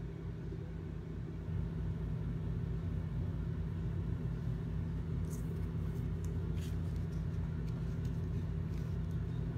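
A steady low hum, a little louder from about a second and a half in, with a few faint light ticks around the middle.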